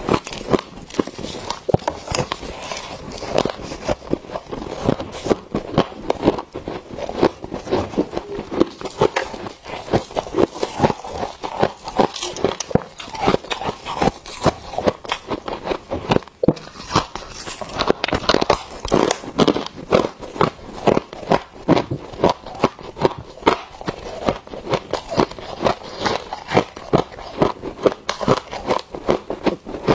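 Freezer frost being bitten and chewed: rapid, continuous crunching of packed white frost between the teeth.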